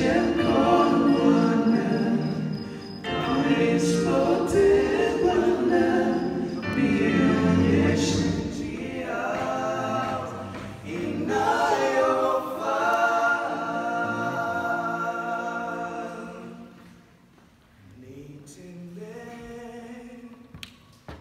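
Small male a cappella gospel group singing in close harmony through microphones. About three-quarters of the way through the singing drops away to a soft, quiet passage.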